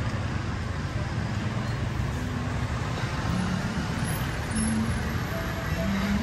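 Steady street traffic noise: a continuous low rumble of road vehicles.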